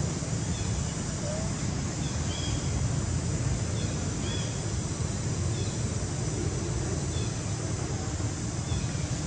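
Steady low outdoor rumble with faint short high chirps from small birds every second or so.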